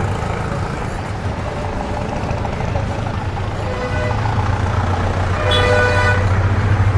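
Street traffic with a motor vehicle's engine running close by, its low hum growing louder about halfway through, and a vehicle horn tooting once, briefly, near the end.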